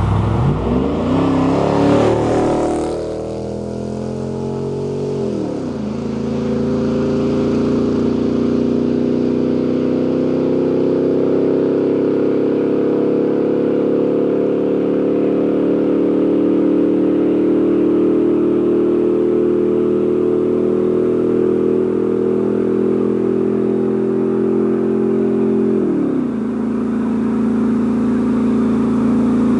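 2000 Chevrolet Silverado's 4.8-litre V8 running through a muffler with its fiberglass packing removed. The revs climb at the start and the note drops at a shift a few seconds in. It then holds a steady drone and drops again at another upshift near the end.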